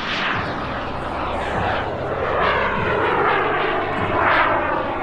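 JetCat P400 Pro model jet turbine in a large RC Fiat G.91 flying overhead, a steady jet rush whose pitch sweeps up and down as the aircraft passes. It grows a little louder in the second half.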